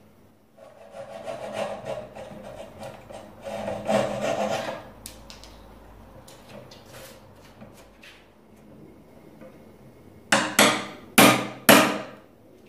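Wooden Windsor chair shifted and turned on a wooden floor, scraping and rubbing in two swells, then four sharp wooden knocks near the end.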